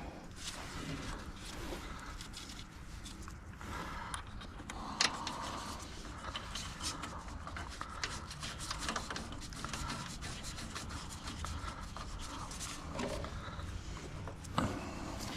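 Hands refitting a carburetor float bowl on a small snowblower engine: scattered light clicks, taps and rubbing of small metal parts being handled and fitted.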